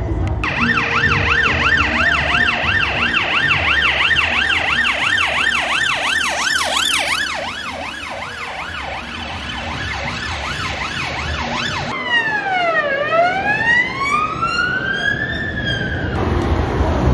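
Police car siren on a fast yelp, about three sweeps a second, which drops a little in pitch about seven seconds in. About twelve seconds in it switches to a slower wail that falls and then rises, and it cuts off near the end.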